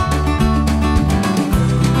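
Instrumental passage of an Americana acoustic shuffle: fingerpicked acoustic guitar over a bass line, in a steady beat.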